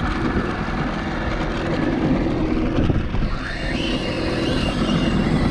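Outboard motor running steadily at low speed, mixed with wind and water noise on the microphone.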